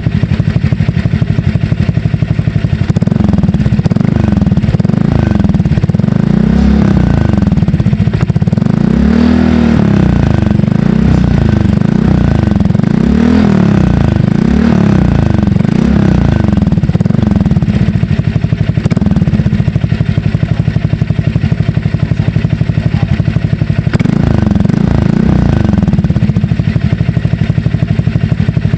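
Honda Click scooter's single-cylinder engine running through an SC Project aftermarket exhaust fitted with a double silencer. It is revved up and down in a string of quick blips, then idles steadily, with a couple more revs later on.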